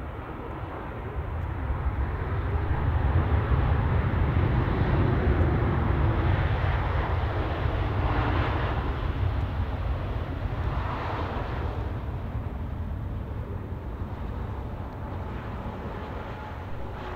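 Jet engines and airframe of a Boeing 787-8 rolling out along the runway just after landing, a steady rumble that swells as it passes and then slowly fades away.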